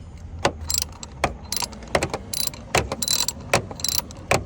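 Ratchet socket wrench clicking irregularly as it turns bolts while a new EGR valve is fastened on.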